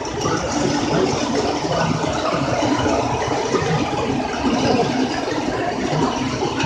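ACE Trains O gauge tinplate model trains running along the layout's track: a steady clatter of metal wheels on tinplate rail.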